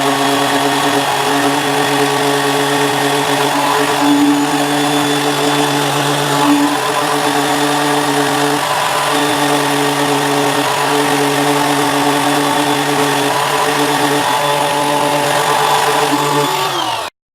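Small electric motor running steadily at one pitch, with a few brief dips, then cutting off suddenly near the end.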